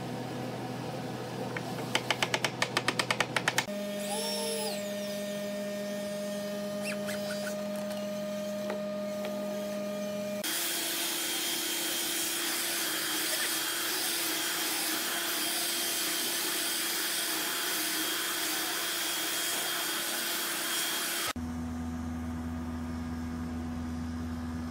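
An electric hand planer runs for about ten seconds, its motor whining steadily under the hiss of the blades shaving the face of a wooden tabletop. Before it, about two seconds in, comes a quick run of about a dozen sharp clicks, then a steady motor tone. A lower steady machine hum follows the planer.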